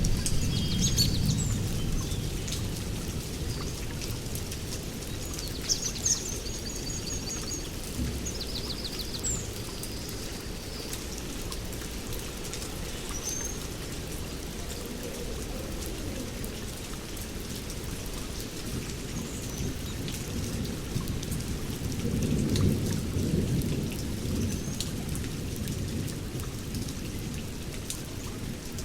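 Heavy rain falling steadily in a forest, with low rumbles of thunder at the start and again about two-thirds of the way through. Birds chirp and trill over the rain in the first third.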